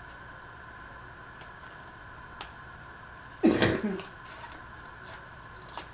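A single short cough, about three and a half seconds in, over a steady background hum, with a couple of faint clicks.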